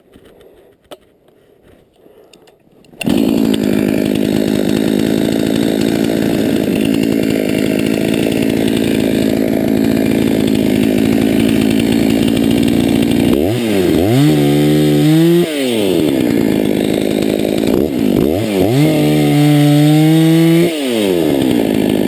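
Two-stroke chainsaw starting abruptly about three seconds in and running steadily. It is then throttled up to a high whine twice, for about two seconds each, as it cuts through a snow-covered fallen tree.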